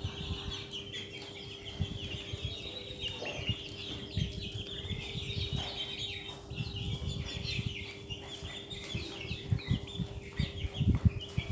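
A flock of young Australorp chickens peeping and chirping continuously in many short, high calls. Irregular low thumps and knocks and a steady faint hum run underneath.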